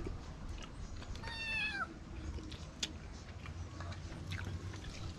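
Domestic cat meowing once, about a second in: a single drawn-out meow that drops in pitch at the end.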